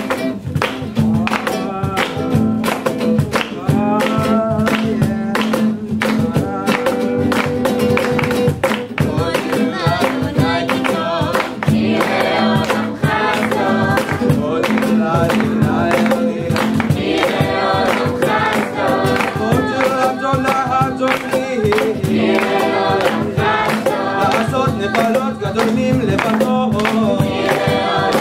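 A group of young voices singing an original psalm setting together, led by a male voice, over a strummed acoustic guitar with steady rhythmic handclapping.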